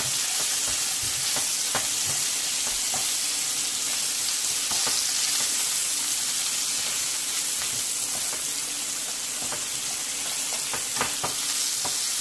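Beef burger patties and sliced onions sizzling in butter in a nonstick frying pan, a steady frying hiss. Scattered light scrapes and taps come from a slotted spatula stirring the onions.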